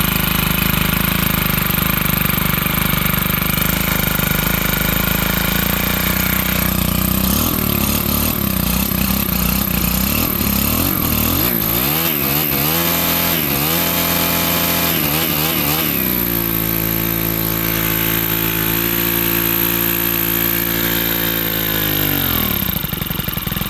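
Stihl HT 131 pole saw's small 4-MIX engine running on its first test after a rebuild. It idles steadily, is revved up and down several times, holds a steady higher speed, then falls back near the end. The owner says the low end still needs adjusting and the carburetor will probably have to be cleaned and rebuilt.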